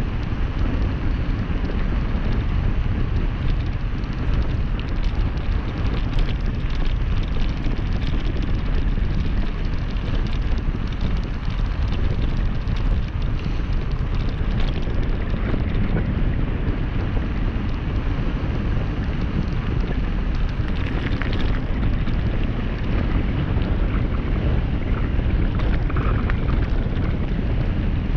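Heavy wind noise buffeting the microphone, with tyres crunching and rattling over loose gravel on a fast downhill ride.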